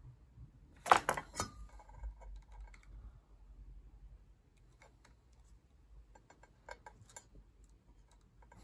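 Sharp clicks and light taps of small hand tools and metal wiring connectors being handled, a quick cluster loudest about a second in, then scattered lighter ticks.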